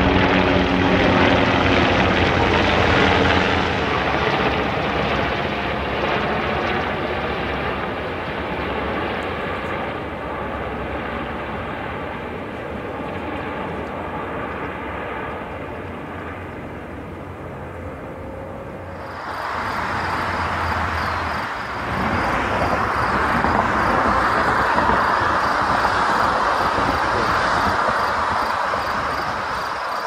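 Helicopters flying overhead, their rotors beating steadily and slowly fading. About two thirds of the way in the sound changes to a steady hiss with a faint, fast, high-pitched pulsing.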